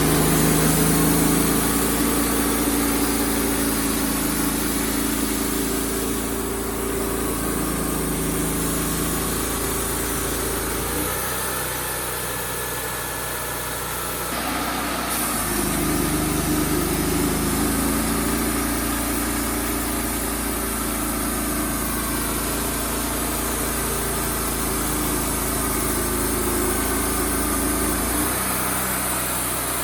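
Wood-Mizer LT35HD portable sawmill running as it saws red oak boards, a steady engine note that drops about a third of the way in and picks up again about halfway through.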